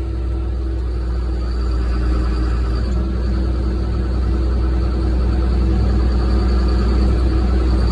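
Diesel engine of an excavator running steadily, a constant low hum that grows gradually louder.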